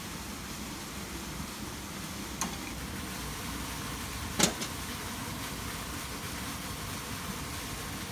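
A steady low rumble with two sharp metallic clinks, the second and louder one about four and a half seconds in: hand tools knocking on metal during work on a diesel tractor engine's injectors.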